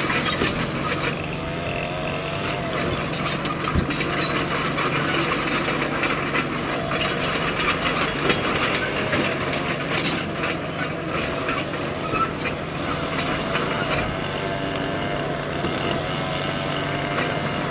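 Bulldozer's diesel engine running steadily, with many sharp metallic clanks and rattles throughout as it works pushing rock.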